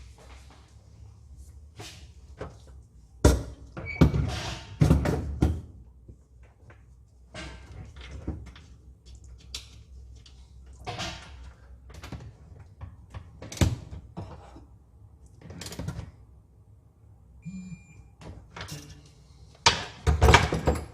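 Irregular knocks, clunks and clatters of parts and tools being handled as a car's automatic pedal box is swapped for a manual one, with the loudest knocks a few seconds in and near the end.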